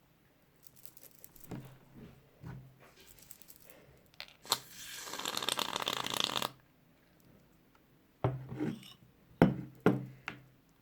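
Aerosol can of shaving foam spraying for about two seconds, a dense hiss, surrounded by small clicks and knocks of handling, with several sharp knocks near the end.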